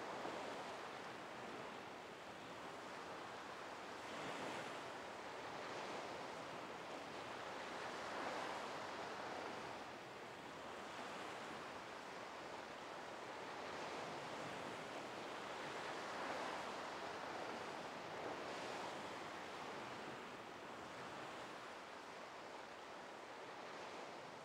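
Sea surf washing onto a beach: a steady rush that swells and eases every couple of seconds.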